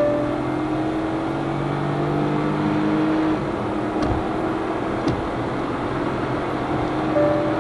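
Hyundai Venue N Line's three-cylinder turbo petrol engine and tyre noise heard from inside the cabin at highway speed. The engine note climbs slowly, dips about three seconds in, then runs on steadily.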